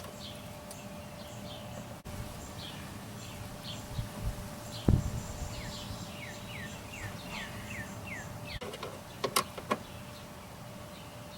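Hand work on a Ford Ranger's rear door latch cable and its plastic repair-kit cable end: a sharp thump about five seconds in and a few quick clicks about nine seconds in. A bird chirps repeatedly in the background over a faint steady hum.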